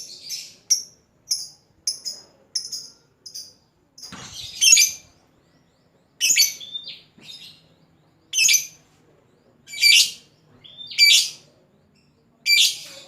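A lovebird calling: a quick run of short, high chirps, then loud, shrill calls repeated every second or two.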